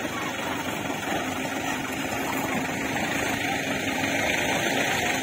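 Engine of an off-road 4x4 running steadily.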